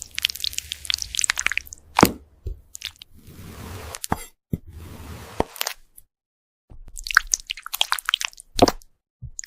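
Crisp crackling and crunching of something brittle, in several bursts of fine crackles broken by sharp snaps. A soft hiss runs about three to four seconds in, and the loudest crackling burst comes after a short pause, about seven to eight and a half seconds in.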